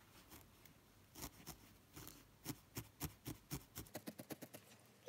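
Felting needle stabbing repeatedly through wool into a foam pad as a leg is felted onto the body: faint, quick pokes, sparse at first, then about four a second in the second half.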